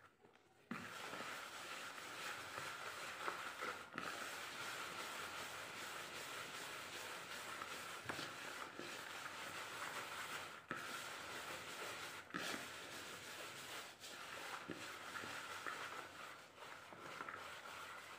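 A hand rubbing and stirring dry rice flour in a plastic bowl: a steady scratchy rustle that starts just under a second in and runs on, with a few brief breaks.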